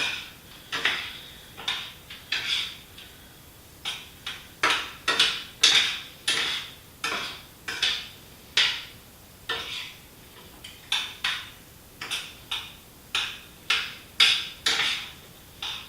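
A cooking utensil stirring picadillo in a pan, scraping and knocking against the pan in short irregular strokes about twice a second.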